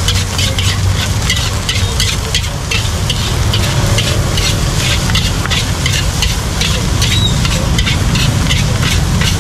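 Metal ladle scraping and clanking against a large steel wok as egg fried rice is stir-fried, the rice sizzling. The strokes come about two or three a second over a steady low rumble.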